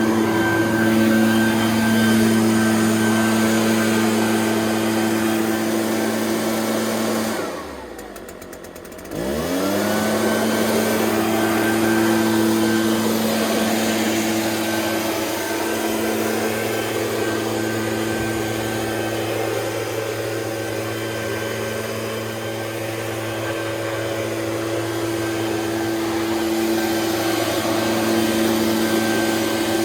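Echo PB-580T backpack leaf blower's 58.2cc two-stroke engine running steadily at high speed. About seven seconds in it is throttled down, its pitch dropping away, then revved back up to the same steady note within about two seconds.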